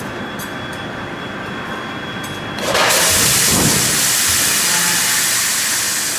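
CNC die forging hammer equipment running with a steady mechanical rumble. About three seconds in, a loud, continuous hiss starts and runs on for about three seconds, with no hammer blows in between.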